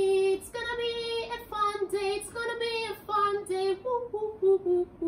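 A woman singing unaccompanied: a long held note, then a string of short notes stepping downward.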